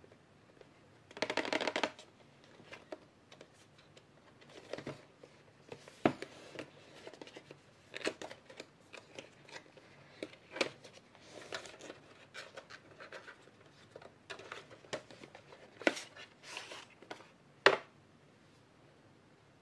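Hands handling objects at close range: a short rustle about a second in, then scattered light clicks and taps, with a few sharper clicks near the end.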